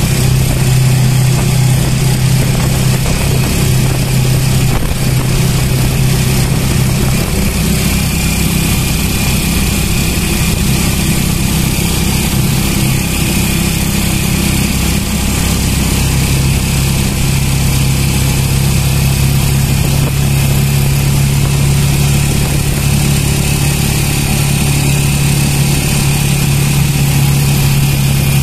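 Motorcycle tricycle's engine running steadily, with a strong low hum that eases for several seconds in the middle and then comes back.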